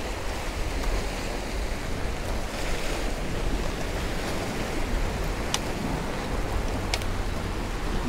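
Surf washing and breaking against the stone blocks of a jetty, a steady rushing wash. Two short sharp clicks, about five and a half and seven seconds in.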